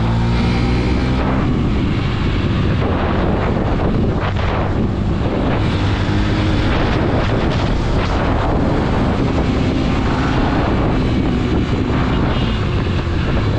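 Motorcycle engine running while riding. Its note is clearest in the first second, then mostly covered by a steady rush of wind on the microphone.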